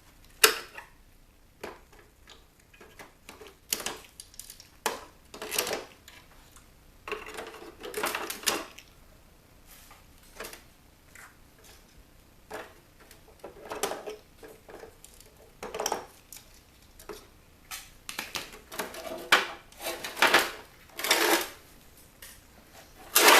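Irregular clicks, snips and clatter of plastic and metal parts as wires are cut and pulled free from a CD changer's chassis, with a few short scraping stretches and the loudest clatter near the end.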